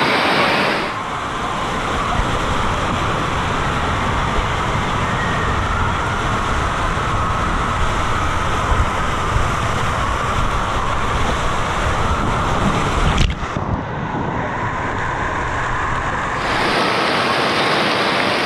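Water rushing down an open body water slide with a rider sliding through it, heard from a camera carried on the ride: a steady, heavy low rush, with a sharp knock about 13 seconds in. Before the ride starts and again at the runout near the end, it turns to the brighter, steady hiss of the slide's flowing water.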